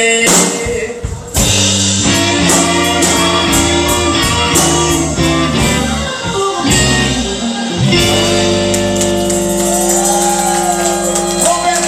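Live electric blues band playing, with electric guitar over bass and drums. About eight seconds in the band settles onto a long held closing chord, and a bent guitar note wavers over it.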